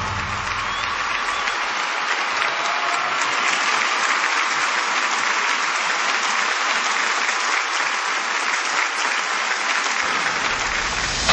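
Audience applause: steady, even clapping with no music under it.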